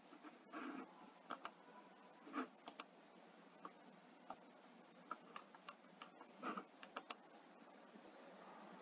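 Faint clicks of a computer mouse, several of them in quick pairs, over quiet room tone.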